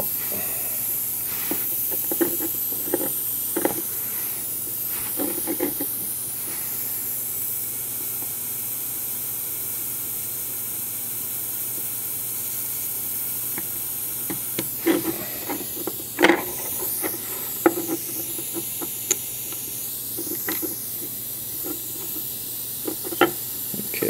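A steady hiss, with scattered light clicks and taps from the tools and connector pins being worked on the circuit board during desoldering.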